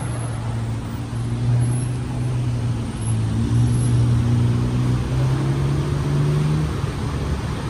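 A road vehicle's engine running steadily amid street traffic, a low hum that shifts slightly in pitch.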